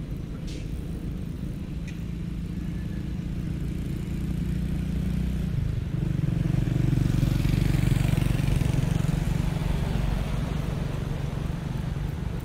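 A motor vehicle's engine running steadily, growing louder about halfway through as it passes close, then easing off slightly.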